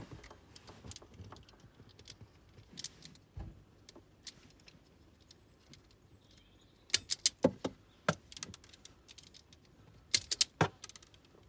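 Red automatic wire strippers gripping and stripping the insulation off the cores of a three-core mains flex, giving sharp clicks. A burst of clicks comes about seven seconds in and another about ten seconds in.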